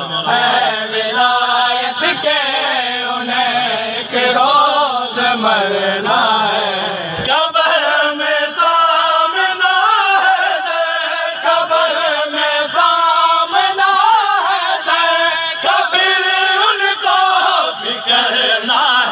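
Men singing a noha (Shia lamentation chant) together, the lead reciter's voice carried through a microphone and large PA loudspeakers, in long, continuous melodic phrases.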